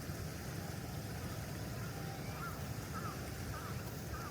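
Steady rushing of a swollen river running high after typhoon rain. From about halfway, faint short bird calls repeat about twice a second.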